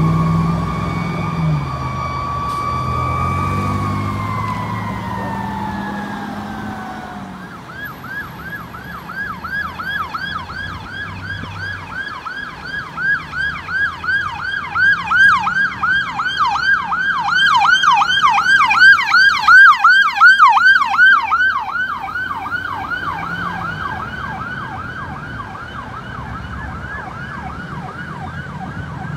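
Electronic emergency-vehicle siren: a steady wail slides down in pitch, then about a quarter of the way in gives way to a fast yelp, about three cycles a second, that grows louder toward the middle and then fades. A heavy engine's low drone sounds under the opening seconds.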